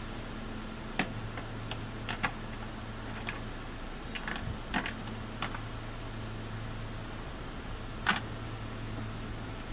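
Scattered light clicks and taps from work on a car, with the sharpest click about eight seconds in, over a steady low hum.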